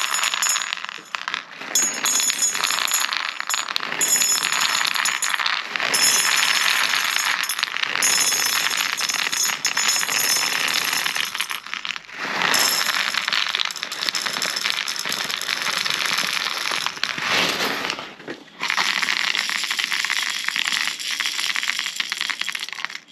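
Plastic 0.32 g airsoft BBs poured from a bag onto a stacked aluminium sizing tray. They clatter and rattle across the metal and drop through the holes onto a pile below, with a few brief pauses in the pour.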